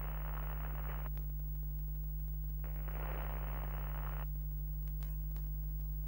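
Steady low electrical hum, with two stretches of static-like hiss, the first at the start and the second, longer one about halfway through.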